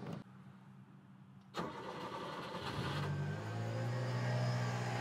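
Subaru Sambar dump truck's carbureted engine cranking on the starter for about two seconds on a cold start, then firing up and settling into a steady idle. It catches easily on freshly replaced plugs, wires, cap and rotor.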